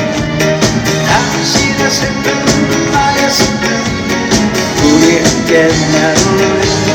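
Live band music: an upbeat pop song with a steady drum beat and a singer's voice over it.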